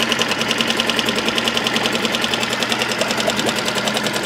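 Mercury 3.5 hp FourStroke outboard's single-cylinder engine idling with a steady, even, rapid putter. It is warm, started without choke, and runs smooth and quiet: a purr.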